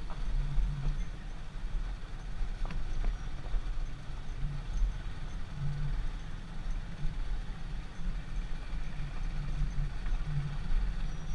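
Motorcycle running while being ridden, with a low, uneven rumble.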